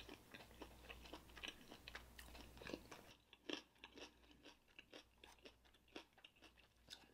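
Faint close-up chewing of a mouthful of fried chicken wing, with small crunches and mouth clicks that thin out after about three seconds.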